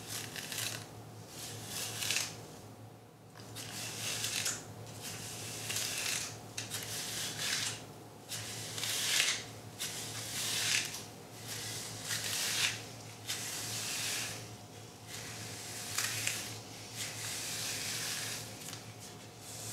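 Bristles of a Tamebella ZaZa double-sided detangling brush raked through wet, conditioner-coated type 4 hair, about a stroke a second, each a short crackling, pulling rasp. She hears it as the brush tearing at her ends, though she allows it may just be ends that need a trim.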